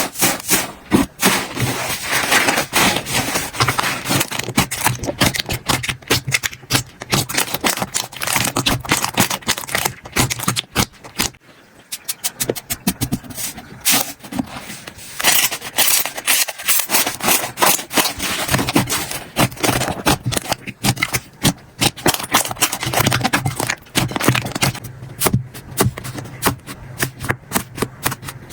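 Slime being squished and pressed, giving a dense, continuous run of crackling clicks and pops, with a short lull about eleven seconds in.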